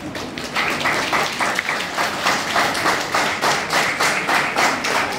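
A group of people applauding, a dense run of hand claps that starts about half a second in.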